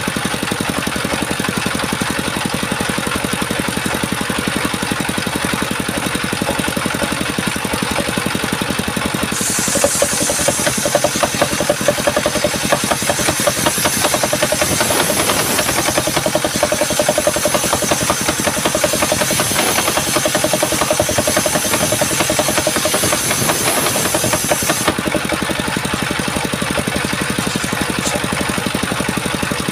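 Chainsaw engine running steadily, with a louder, hissier stretch from about nine seconds in to about twenty-five seconds in.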